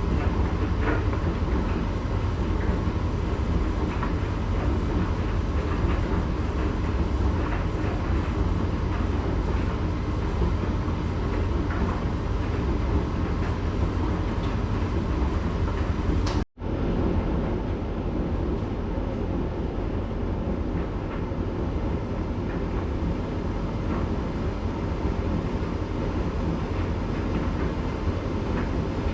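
Candy GrandO 9 kg tumble dryer running with a load of towels: a steady low hum and rumble from the turning drum, with light scattered ticks. About sixteen seconds in it cuts off for an instant and resumes slightly quieter, now in the heated cool-down phase.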